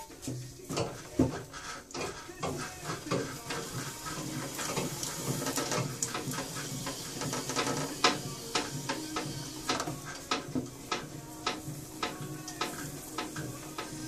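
Wet clay being thumped down onto a potter's wheel head, then centred by hand on the turning wheel: irregular wet slaps and squelches of clay against hands and the metal wheel head, over the steady hum of the electric wheel. A few heavier thumps come in the first second or so.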